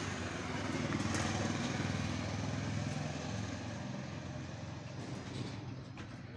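A machine running steadily with a low hum, growing gradually fainter over the last few seconds.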